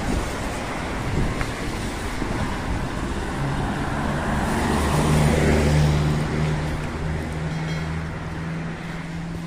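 Road traffic on a wet street: tyres hiss on the wet asphalt, swelling as a vehicle passes about halfway through. A steady engine hum comes in about a third of the way in and holds to the end.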